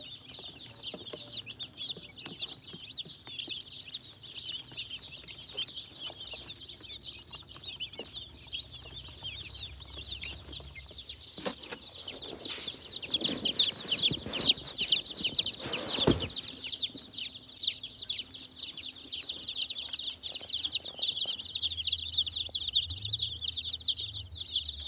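A crowd of baby chicks peeping continuously, many short high chirps overlapping. About halfway through, a few seconds of rustling noise sound over them.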